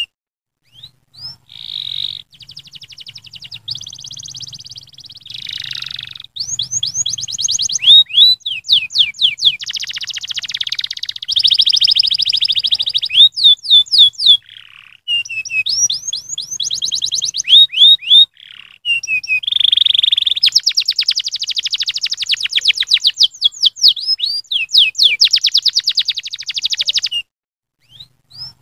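Domestic canary singing a long, loud song of fast trills and rapid rolling notes, phrase after phrase with short breaks between them, stopping shortly before the end.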